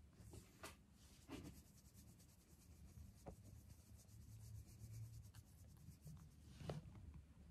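Fingers scratching a cat's fur close to the microphone: a faint soft rubbing with a few light clicks, over a low steady hum.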